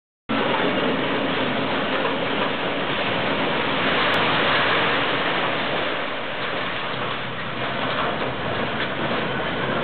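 Concrete and steel debris crashing and clattering down as high-reach hydraulic excavators tear down a building's wall, with the machines' engines running under it. A dense, continuous noise, loudest about four to five seconds in.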